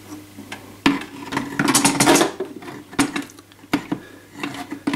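Aluminium dome of a full-size R2-D2 replica being lowered and seated onto its base plate: a sharp metal knock about a second in, then metal scraping and clattering against metal, with more single knocks.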